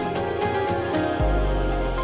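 Instrumental background music with steady held notes and a light ticking beat; a deep bass note comes in just over a second in.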